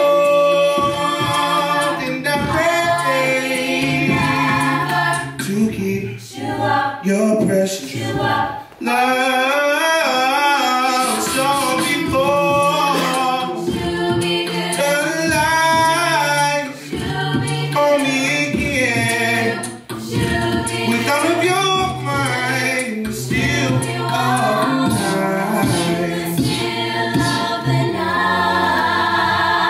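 A cappella vocal group of mixed male and female voices singing in harmony, with no instruments, a low bass voice holding long notes under the melody.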